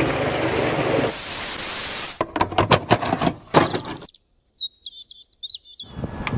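A steady rush of noise, then a fast run of sharp clicks, then a small bird chirping a quick series of high notes over silence.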